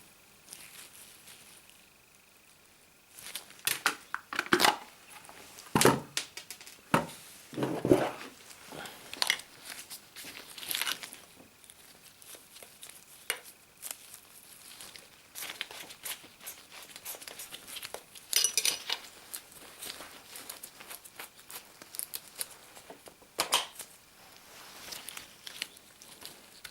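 Plastic wrapping crinkling and rustling, with irregular clicks and knocks of hard plastic parts being handled.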